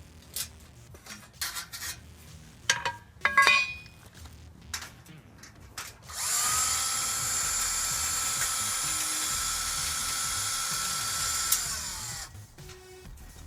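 Cordless drill with a Phillips bit removing screws from a steel shipping cage: a few metal clicks and clanks, then the drill motor spins up about six seconds in, runs steadily for about six seconds and winds down.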